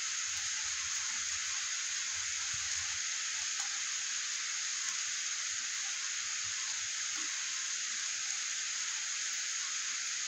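Steady heavy rain falling on a wet street and pavement, an even hiss with no break.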